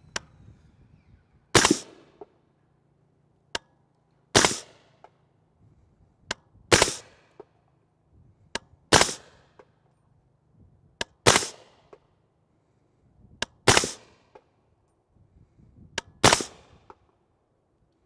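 Seven suppressed shots of subsonic 220-grain 300 Blackout from a 7.5-inch AR-15 upper with a JK Armament 4-in-1 suppressor, fired one at a time about two and a half seconds apart. Each sharp report fades quickly and follows a small click, and the action cycles each round with the can on.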